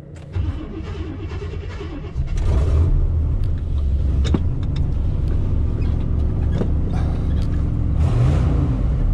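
Engine of an old GMC pickup running, heard from inside the cab. It gets louder about two seconds in, with a few light clicks and knocks over it.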